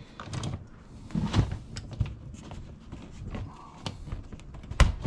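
Boxes and stored items being handled: a run of scattered knocks, thuds, rustles and clicks, with one sharp knock near the end.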